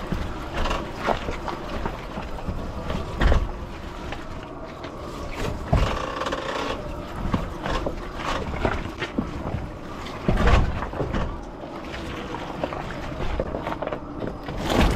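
Rivian R1T pickup crawling over a rocky dirt trail: a steady rumble of tyres on rock and gravel, broken by irregular knocks and clunks from the wheels and suspension, the loudest about 3, 6 and 10 seconds in.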